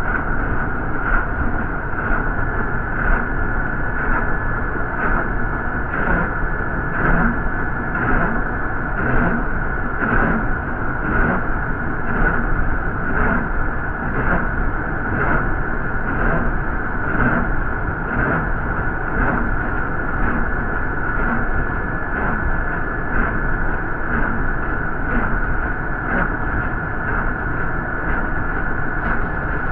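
Inside a moving city bus: steady engine and road noise, with a faint regular knock about once a second.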